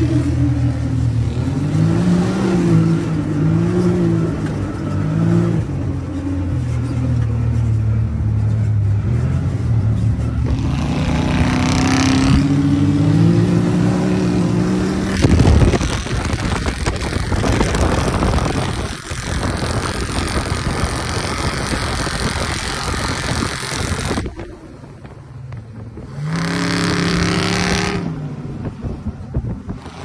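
Off-road vehicles' engines revving up and down as they drive over sand dunes. There is a long stretch of rushing wind and tire noise in the middle, and the sound changes abruptly several times between clips.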